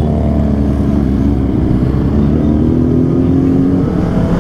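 Honda CBR250RR parallel-twin engine running at low speed in a low gear, its revs climbing slowly as the bike pulls away, then easing off near the end, over a steady low rumble of road and wind noise.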